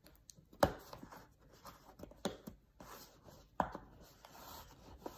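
Cardboard box being handled and opened: faint rubbing and scraping of cardboard and packing, with a few sharp knocks about a second or more apart.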